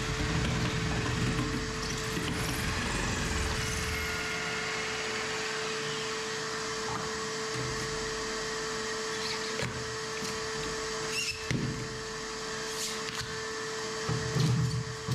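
A handheld power tool running steadily with a constant hum as it chisels and scrapes fiberglass and foam off the inside of a boat hull.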